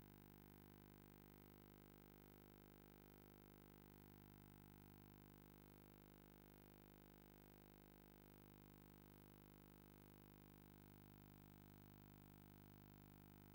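Near silence: the sound track has dropped out, leaving only a faint, steady electronic hum.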